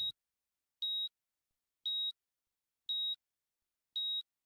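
Heart-monitor beep sound effect: five short, identical high-pitched beeps, one about every second, like a patient monitor tracking a steady pulse.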